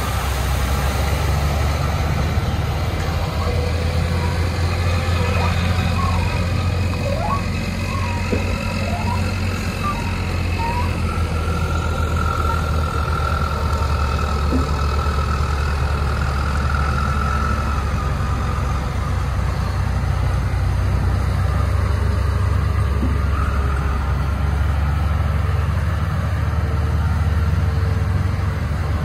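Diesel engine of a Sinotruk Howo eight-wheel dump truck running steadily as it tips sand from its raised bed and then drives forward with the bed down. A faint high whine sits over the engine for several seconds midway.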